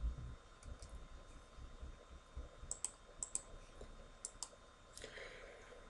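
Faint irregular clicks, singly and in quick pairs, typical of a computer mouse being clicked, over a faint low room rumble.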